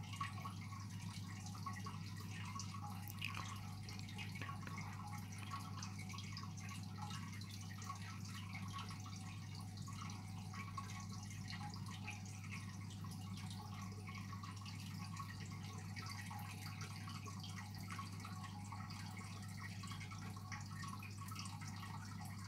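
Fish tank's water equipment running: a steady low hum under a continuous light trickle of water with small irregular drips.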